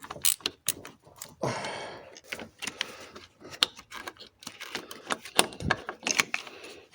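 Irregular metallic clicks and light clatter of hand tools and small metal parts such as nuts and washers being handled. There is a short scraping sound about a second and a half in.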